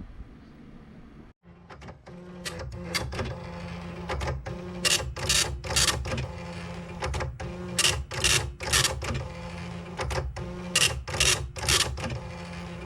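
Commodore 1526 dot-matrix printer printing: a steady mechanical buzz with repeated sharp, rasping passes of the print head. It starts after a brief dropout about a second and a half in.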